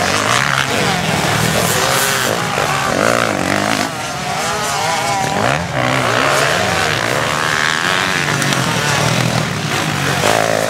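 Several motocross bikes racing, their engines revving up and down with pitches that rise, fall and overlap.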